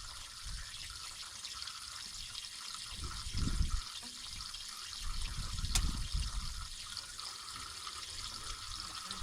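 Water from an artesian well running steadily, a constant splashing hiss, with low rumbling bumps partway through and a single sharp click about six seconds in.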